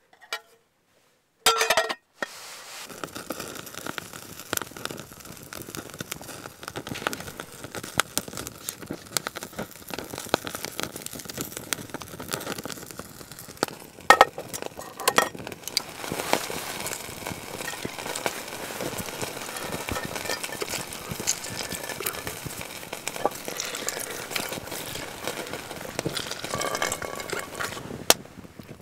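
Wood fire crackling and oil sizzling in a pan on a Firebox folding stove, a dense run of small pops and crackles, with a couple of metal clinks of the pan and pan gripper about halfway through.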